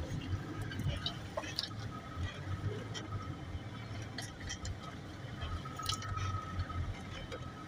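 A 4x4's engine running with a low, steady drone, heard from inside the cabin, while water and mud splash and slosh under the tyres on a flooded dirt road. Scattered light clicks and rattles come from the cabin.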